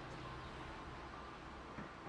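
Quiet room tone: a faint steady hiss with a low hum, and a single soft click near the end.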